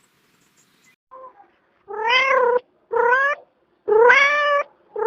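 A cat meowing over and over: a faint short call about a second in, then loud meows about once a second, each rising at its start, the fourth beginning near the end.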